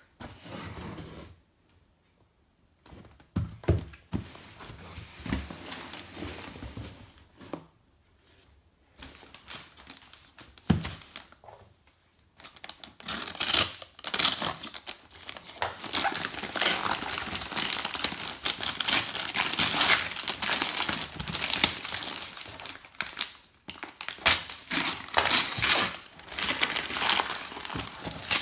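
Brown paper parcel wrapping being slit and then torn and crumpled off a cardboard box, a dense continuous crackle through the second half, after a few knocks and short rustles of handling.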